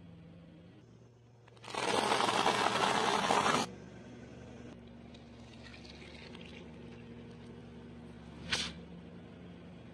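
A car tyre crushing things on concrete: a loud two-second gush and splash as a water balloon bursts under the wheel, then quieter squishing and crunching, with one short sharp crack near the end. A low engine hum runs underneath.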